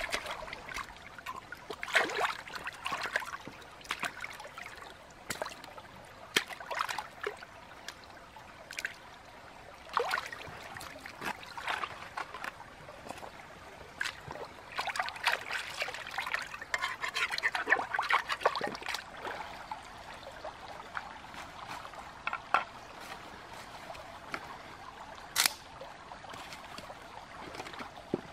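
Hands splashing and swishing water while washing fish in a shallow stream, in irregular bursts with dripping and a few sharp knocks, over the steady trickle of the stream.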